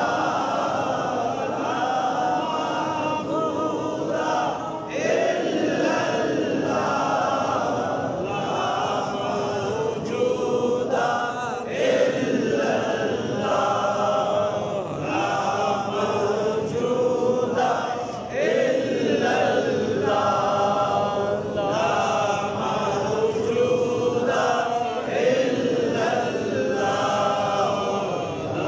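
Several voices chanting together in unison, a continuous melodic devotional recitation in short, repeated phrases.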